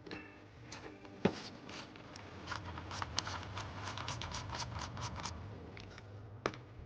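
Hand tools at work on engine parts: scraping and handling noises, a quick run of clicks through the middle, and two sharp knocks, one about a second in and one near the end.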